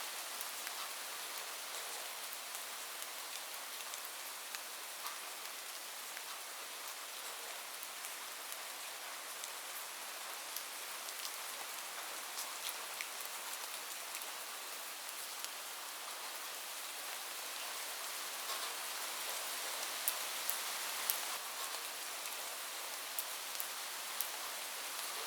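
Steady rain falling on a roof, a dense patter with individual drops ticking sharply; a few louder drops land about twenty seconds in.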